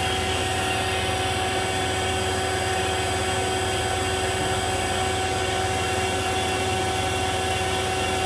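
Fieldpiece refrigeration vacuum pump running steadily, pulling a vacuum on the refrigeration system: a constant mechanical hum with a few steady tones over an even noise.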